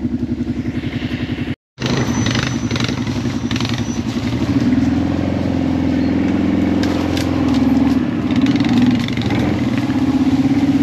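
Kawasaki Brute Force ATV engine, first idling with an even pulse. After a sudden break about two seconds in, it runs under way with the revs climbing about four seconds in, then dipping and picking up again.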